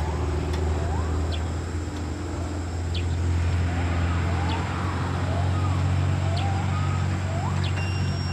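Coach bus engine running with a steady low drone. Short rising whistle-like glides repeat over it every half second to a second.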